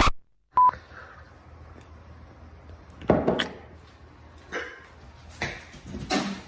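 A short beep, then a boy gagging and coughing with his hand over his mouth: one loud heave about three seconds in, then several smaller ones near the end.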